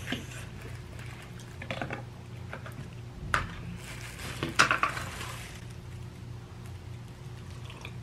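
Plastic deli-container lid being pried off and handled, with sharp plastic snaps a little over three seconds in and again about a second later, and crinkling of the plastic bag around the container, over a steady low hum.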